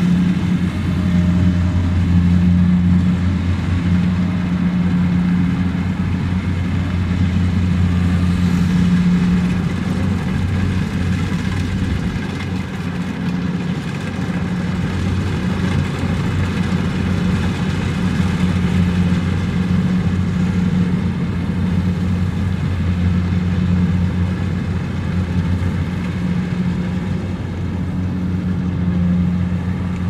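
Kubota rice combine harvester's diesel engine running steadily under load as it cuts and threshes the crop: a loud, low, even drone that swells and eases slightly a few times.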